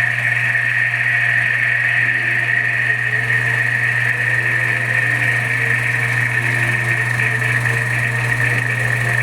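Singer Graflex 1115A 16 mm film projector running, its motor and film transport making a steady mechanical whir and hum. Faint music from the film's optical soundtrack plays underneath.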